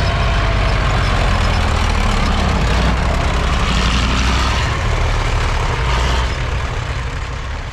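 Tracked armoured vehicle driving past at close range, its engine running steadily with a strong low hum; the sound fades near the end as it moves away.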